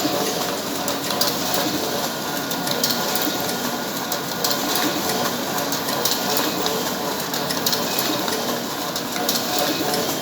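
Canon iR 5075 photocopier running a double-sided print job: a steady mechanical whir with frequent small clicks.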